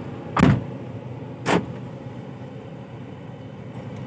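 Steady road and engine noise inside a moving car's cabin, broken by two loud thumps about a second apart, the first and louder one shortly after the start.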